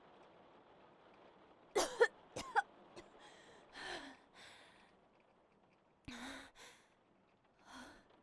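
A person coughing harshly in a quick cluster of bursts about two seconds in, then breathing out in rough, breathy gasps, with another coughing fit about six seconds in and a short breathy gasp near the end.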